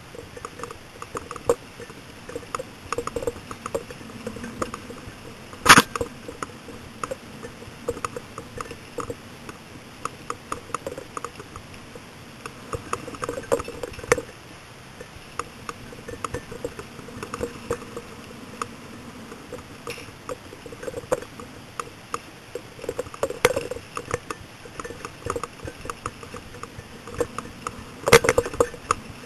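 Mountain bike rattling and clinking over a rough trail: a steady run of small clicks from the chain and loose parts, with a sharp knock about six seconds in and a couple more near the end.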